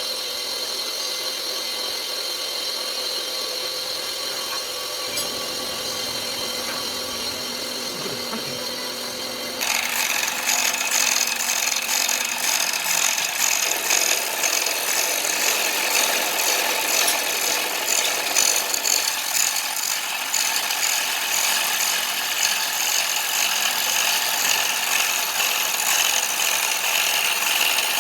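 A power tool runs steadily with a motor hum. About ten seconds in it bites into the steel plate and a louder, rough grinding-scraping sound carries on from there.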